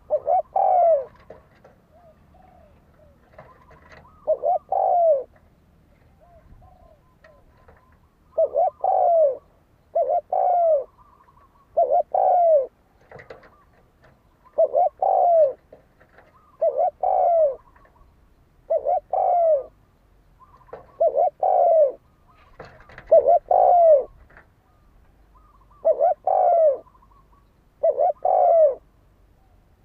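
Spotted dove cooing: short phrases of coos repeated about every two seconds, with fainter calls between them.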